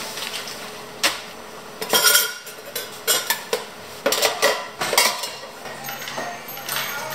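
Stainless steel milk pitchers and other cafe gear clinking and knocking as they are packed into a plastic milk crate, a run of sharp metallic clatters.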